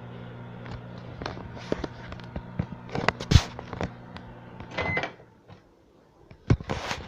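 Microwave oven running with a steady low hum and scattered clicks and knocks. About five seconds in, a short beep sounds and the hum stops, followed by a couple of knocks.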